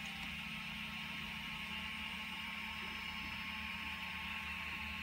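Steady low hum with a faint constant tone and hiss, even throughout, with no clicks or handling knocks.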